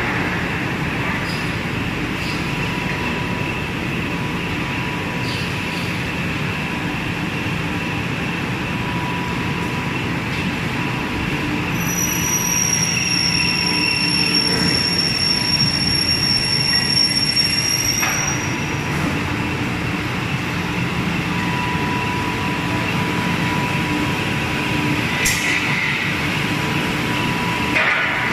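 Steady running noise of aluminium extrusion plant machinery and conveyors, with a high-pitched squeal lasting about six seconds in the middle.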